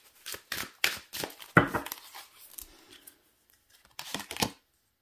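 A deck of oracle cards being shuffled by hand: a run of crisp card snaps and paper rustles, thinning out after about two seconds, with a last few snaps about four seconds in.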